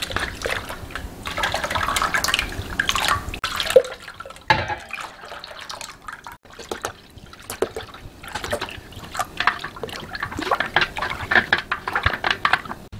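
Ground red chili poured from a stainless steel cup into a steel bowl of kimchi brine, splashing and dripping, then a thin stream of liquid poured in and the brine stirred. A sharp knock comes just under four seconds in.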